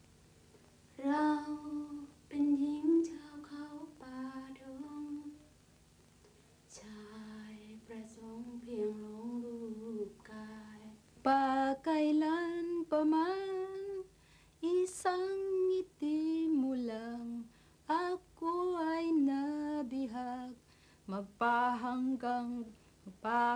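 A woman singing a slow song unaccompanied, phrase by phrase in long held notes with short pauses between them.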